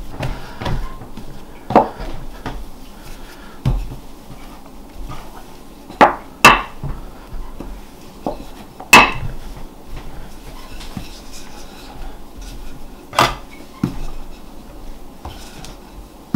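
Bread dough being pressed and worked out flat by hand on a floured wooden board: soft handling and rubbing noise, broken by a handful of sharp knocks on the wood, the loudest a pair about six seconds in and another about nine seconds in.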